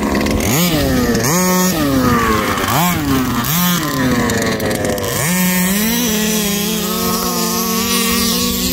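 Small two-stroke engines of 1/5-scale gas RC cars revving: four short throttle blips, each rising and falling in pitch. Then, about five seconds in, a long run at high, steady revs as the truck drives off.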